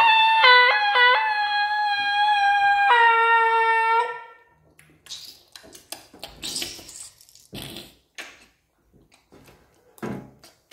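A high, screeching dinosaur cry held for about four seconds, dropping sharply in pitch and back twice near the start and shifting again about three seconds in. Then light knocks and rustles of the plastic toy dinosaur being handled on the table.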